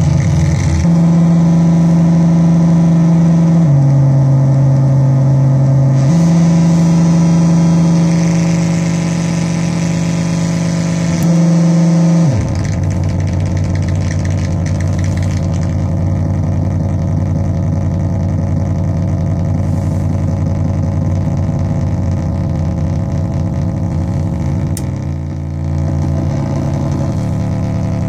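Metsään Dirty Drone [anarchy] vers2.1 drone synth, its three interacting triangle-wave oscillators making a loud, steady buzzing drone. The pitch steps down and back up once, then about twelve seconds in drops to a lower, rougher buzz that shifts slightly near the end.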